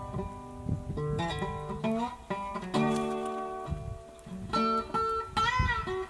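Background music of acoustic guitar, plucked notes with some strumming, a few notes wavering in pitch near the end.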